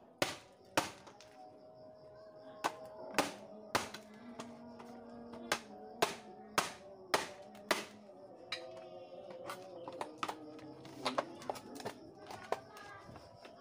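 Hammer blows knocking apart a rice cooker's plastic and metal housing for scrap. The sharp, irregular strikes come roughly every half second to second and a half.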